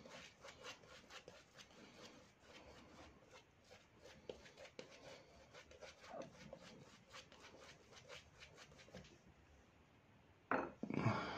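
Shaving brush working thick lather on a face: a quick run of soft, faint brushing strokes, with a brief louder rustle near the end.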